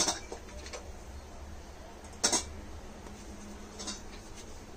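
Balls of wheat-flour dough being handled, set down and pressed by hand on a stone countertop: a few short knocks, the loudest a double one about two seconds in, with quiet handling between.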